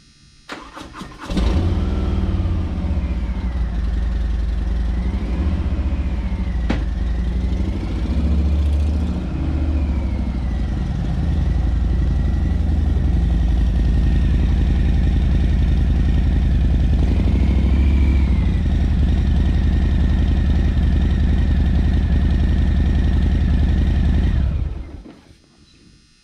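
Harley-Davidson Fat Boy 114's Milwaukee-Eight 114 V-twin starting about a second in, its speed rising and falling for several seconds as the bike is ridden out, then idling steadily before it is shut off near the end.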